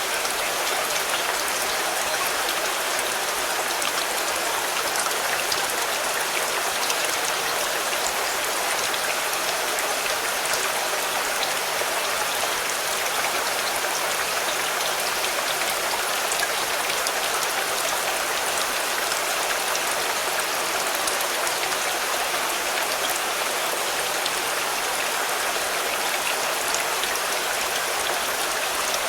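Steady rain falling on a car, with many small drops pattering on the body and roof in an even hiss.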